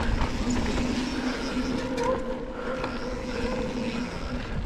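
Mountain bike rolling fast down a dusty dirt trail: steady rumble of tyres and wind, with a held buzzing tone underneath.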